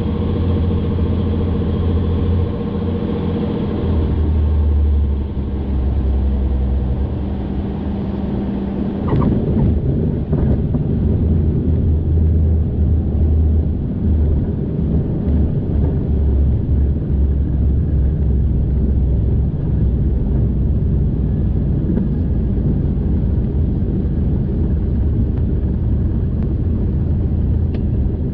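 Single-engine light airplane heard from inside the cabin: engine and propeller running at low power on short final, then a brief bump about nine seconds in as the wheels touch down, followed by tyre rumble along the runway with the engine at idle during the landing rollout.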